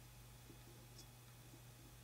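Near silence: room tone with a steady low hum and a single faint tiny click about a second in.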